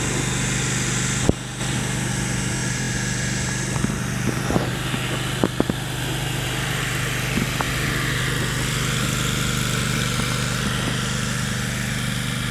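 Exmark Turf Tracer X-Series walk-behind mower's engine running steadily, with a few light clicks near the middle.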